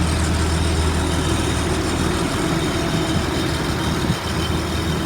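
A Blue Bird All American school bus's Caterpillar 3126 diesel engine idling with a steady low hum, under a steady hiss.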